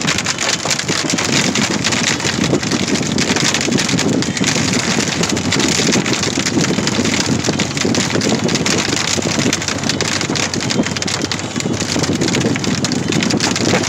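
Hail pelting a car's roof and windshield, heard from inside the cabin as a dense, unbroken clatter of impacts over the car's road noise.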